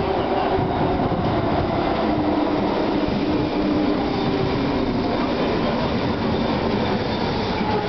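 Bombardier Mark I SkyTrain train running into a station, a steady rumble of the train with humming tones from its linear induction motor propulsion, some of them shifting slightly in pitch.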